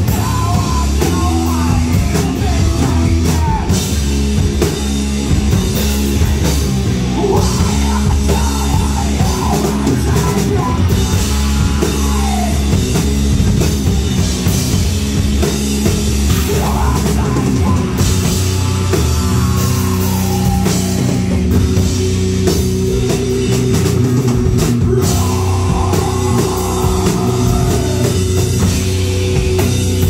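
Live heavy rock band playing loud: electric guitars, bass and drum kit, with a man singing in phrases every few seconds.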